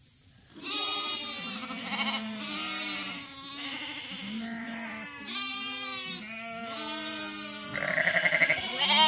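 A flock of sheep bleating in chorus, one call overlapping the next almost without pause after a short hush at the start. A loud, quavering bleat comes near the end.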